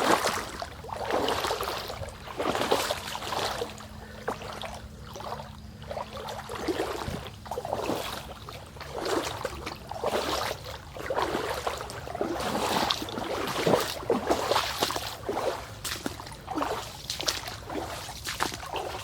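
Footsteps of a person walking along a woodland trail, a footfall roughly every second.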